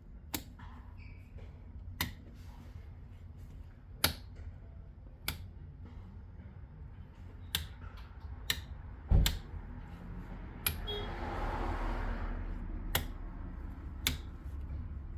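A series of sharp, separate clicks at irregular intervals of one to two seconds, with a short hissing swell near the end.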